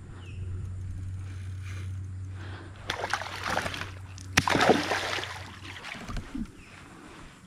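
Hooked juvenile tarpon thrashing and jumping at the surface, making two splashes about three and four and a half seconds in; the second begins with a sudden slap as the fish hits the water. A steady low hum runs underneath and stops about six seconds in.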